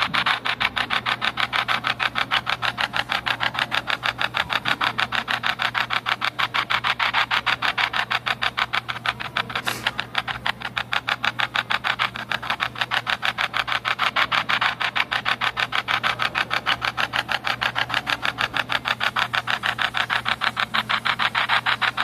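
Spirit box app on a smartphone sweeping through static, heard through the phone's speaker as hissy noise chopped into rapid, even pulses over a steady low hum.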